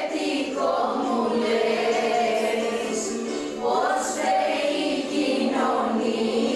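A group of women singing together as a choir, in phrases with short breaks between them.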